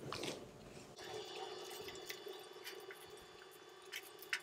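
Wet slurping and chewing as a mouthful of chow mein noodles is sucked in during the first second. Then come a few light clicks and scrapes of a metal fork in a foil plate, the sharpest near the end, over a faint steady hum.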